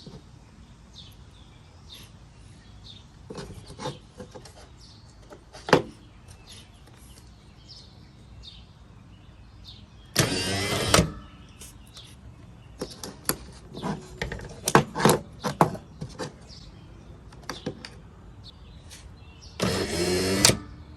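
1983 Pontiac Firebird pop-up headlight motor running briefly twice, each run under a second, about ten seconds apart, while it is powered by hand from the battery to lower the headlight. Scattered sharp clicks and taps come in between.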